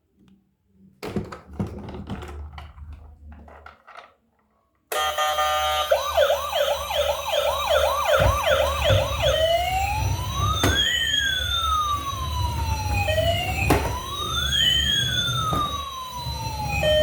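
Battery-powered toy emergency vehicle's electronic siren: a fast yelp of about eight quick sweeps, then slow rising and falling wails, switching to a steady repeated beeping near the end. Before it, a few seconds of faint clicking handling noise.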